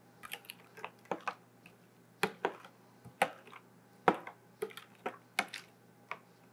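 A metal spoon clinking and scraping against a mixing bowl while stirring thick ketchup-based barbecue sauce, in irregular light taps, about one or two a second.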